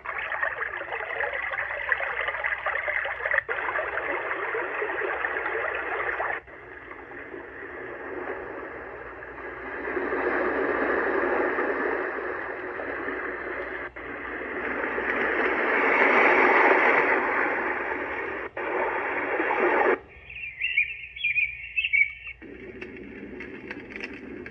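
White noise sleep machine playing its built-in soothing sounds through its small speaker, switching abruptly from one track to the next every few seconds. Most tracks are steady rushing, water-like noise, and about twenty seconds in there is a short stretch of chirping birdsong.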